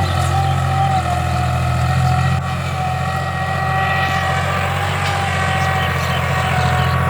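Tractor diesel engine running steadily under load while pulling a plough, with a thin whine riding above the engine note.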